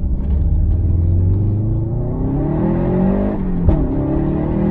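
Subaru WRX STi's turbocharged 2.5-litre EJ257 boxer engine, with a muffler-deleted exhaust, pulling under acceleration. It holds steady for about two seconds, then rises in pitch. About three and a half seconds in, the pitch drops with a click at an upshift, and it climbs again.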